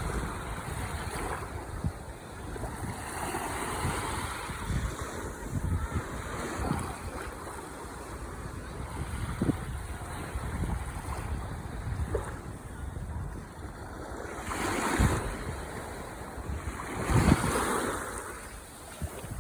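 Ocean waves washing and breaking on the shore in a continuous surf roar, with two louder breakers in the second half. Wind buffets the microphone with low rumbles.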